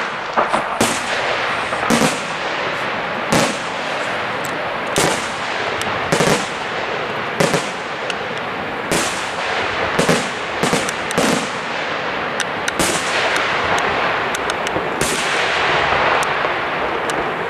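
Aerial fireworks display: loud shell bursts and bangs about once every one to one and a half seconds, over a continuous din between them.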